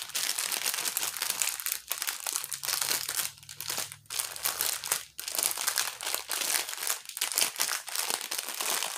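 Small plastic bags of diamond-painting drills crinkling as they are handled, irregular rustling with a few brief pauses.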